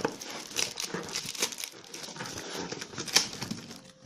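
A shipping box and its packaging being torn open by hand: irregular crinkling, rustling and tearing, with a sharp snap about three seconds in.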